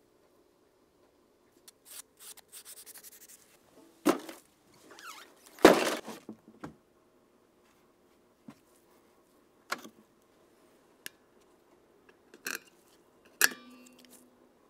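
Scattered knocks, clicks and short scrapes, with a quick rattle of ticks early on and the loudest knock about six seconds in; a brief ringing tone follows the last click.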